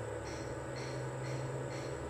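Steady low hum with a faint high-pitched chirp repeating about twice a second; the thin stream of oil pouring into the wok makes little sound of its own.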